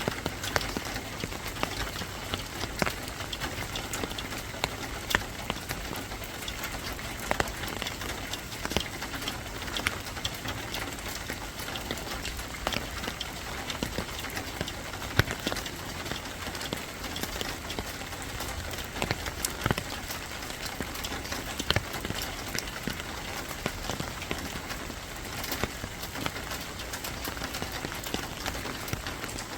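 Steady rain falling, an even hiss with many separate drops tapping sharply and irregularly close by.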